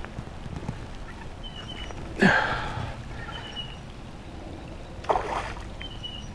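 Rain falling steadily on a pond, with two sharp splashes at the water's surface, about two seconds in and again about five seconds in.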